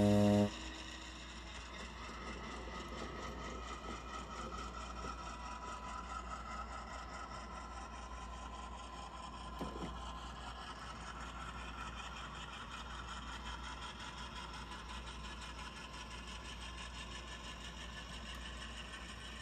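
HO-scale model freight train running slowly along the track: a steady mechanical whir of the train's motor and wheels on the rails, with one short knock about halfway through. A low horn-like tone cuts off abruptly about half a second in.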